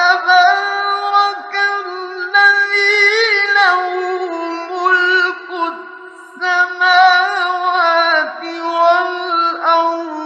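A man reciting the Quran in the melodic mujawwad style, holding long, high, ornamented notes with a wavering pitch, in an old radio recording.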